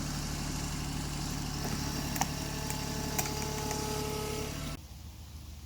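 Diesel engine of a TYM 264 compact tractor running steadily while the BY200 backhoe pulls on a stump, with a thin hydraulic whine over it and a couple of sharp clicks. The sound drops suddenly near the end.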